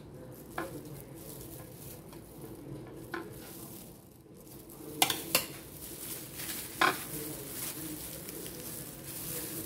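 A metal utensil clinking and scraping against a ceramic plate while spreading filling on a tortilla: about five short, sharp clinks, the loudest a little past halfway. Near the end, disposable plastic gloves rustle as the tortilla is rolled.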